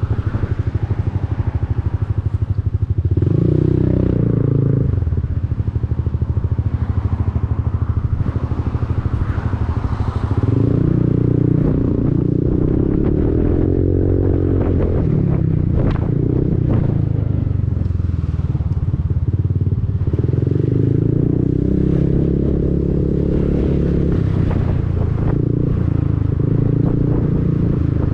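Honda Forza 300 scooter's single-cylinder engine running through an aftermarket Arrow exhaust while riding in traffic. The note rises three times under acceleration, about three, eleven and twenty seconds in, and settles back in between. A few sharp clicks come near the middle.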